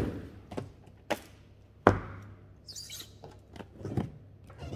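Cardboard headphone retail box being handled and set down on a wooden OSB tabletop: a run of irregular knocks and taps, the loudest a little under two seconds in, with a short rustle of handling around three seconds in.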